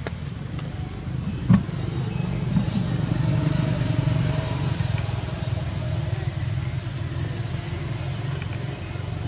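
Low rumble of a motor vehicle engine, building about a second in and then slowly easing, with one sharp click just before it swells.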